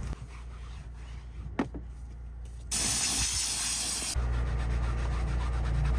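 Compressed-air blow gun blasting air over a car seat: a loud hiss about three seconds in that lasts about a second and a half and cuts off sharply. A steady low hum follows.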